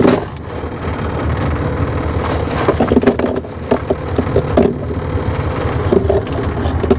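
Cast net shaken out over a cooler of ice, wet shrimp and water dripping and clicking onto the ice in scattered little taps, over the steady low hum of the boat's idling outboard motor.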